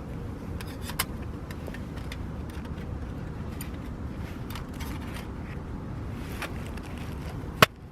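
Light metallic clicks and taps from small camping gear being handled, over a steady low background rumble; one sharp click near the end is the loudest sound.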